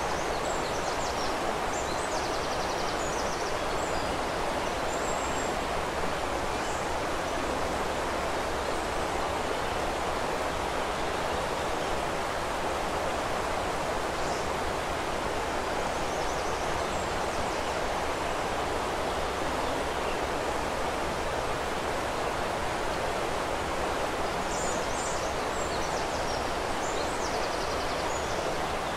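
Steady rushing of a flowing river, with faint high songbird chirps in short clusters near the start, in the middle and again near the end.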